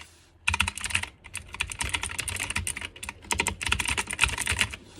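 Typing on a Royal Kludge RK84 mechanical keyboard with clicky blue switches: a fast, continuous stream of sharp key clicks that starts about half a second in.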